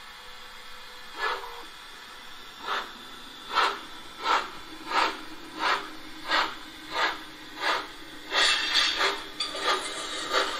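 Gauge 1 model of a Prussian T3 steam tank locomotive pulling away, its ESU LokSound 5 sound decoder playing steam exhaust chuffs over a steady hiss. A single chuff comes about a second in, then regular chuffs about one and a half a second that quicken and run together near the end as the engine gathers speed.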